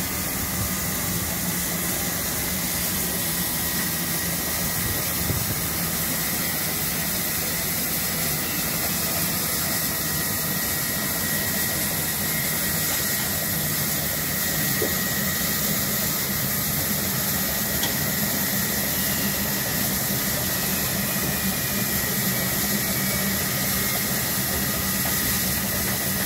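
DB class 23 steam locomotive 23 058 standing with steam up: a steady hiss of steam with a constant high whine over it.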